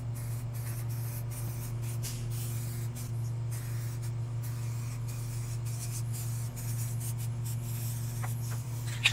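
Aerosol spray paint can hissing in short on-off bursts as paint is sprayed onto metal, over a steady low hum.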